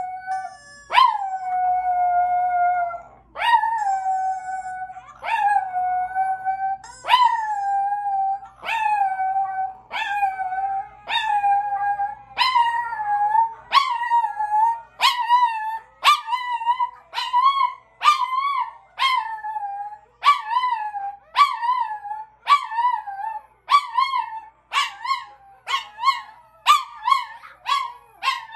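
Chihuahua howling, or 'singing', in answer to other dogs' voices: a long run of howls that each start high and slide down. The first few last about two seconds each, and they grow shorter and quicker until they come about twice a second near the end.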